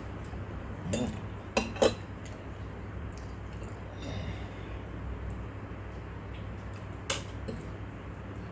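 Eating utensil clinking against a plate of pasta: a few sharp clinks, two in quick succession about a second and a half in and one more near the end, over a low steady hum.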